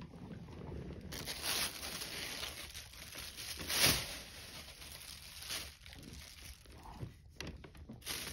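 Thin plastic bag crinkling and rustling in irregular bursts as a cat plays with it, loudest about four seconds in.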